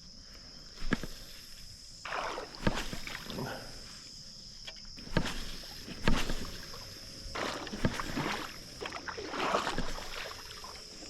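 Irregular sloshing and splashing of creek water with a few sharp knocks, typical of someone wading step by step over a rocky creek bed.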